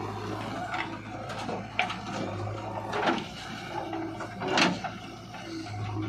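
Soil and clods tipped from a JCB 3DX backhoe bucket into a tractor trolley, landing in several thuds and rattles. A steady hum of diesel engines runs underneath.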